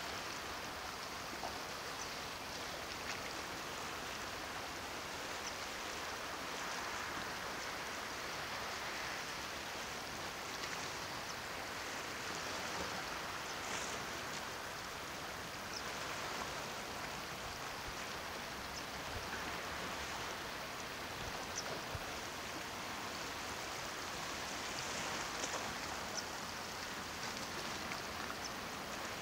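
Calm sea washing against shoreline rocks: a steady hiss of water with scattered small ticks and splashes.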